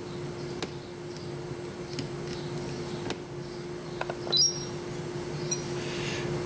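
Steady hum of a running room appliance, with a few faint clicks and a brief high electronic chirp about four seconds in.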